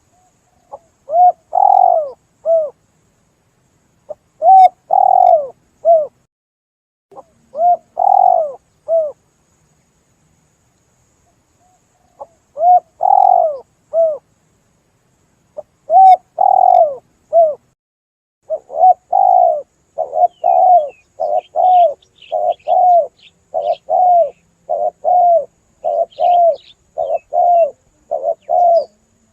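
Spotted dove (tekukur) cooing in clear phrases of two or three notes, each about a second and a half long and separated by pauses. From about two-thirds of the way through, the phrases come in a faster, unbroken run. Faint high chirps of a smaller bird sound during the faster run.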